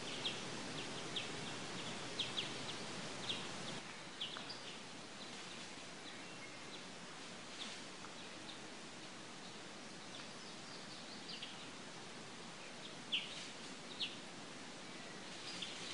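Birds chirping: short, quick falling chirps, many in the first few seconds, then sparser, with two louder ones near the end, over a steady outdoor hiss.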